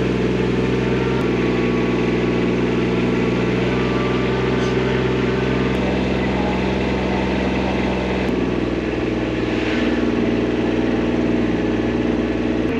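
Engine of the farm truck running steadily close by, a continuous low hum whose note shifts slightly about a second in and again about eight seconds in.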